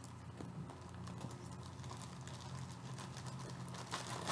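Faint handling noise of light clicks and rustles while she reaches aside for the next skein of yarn, over a steady low hum. A busier, louder run of clicks and rustling comes near the end.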